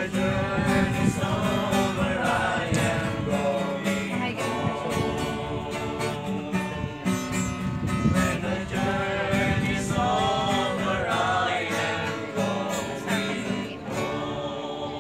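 A small group of young men singing a song together, accompanied by a strummed acoustic guitar.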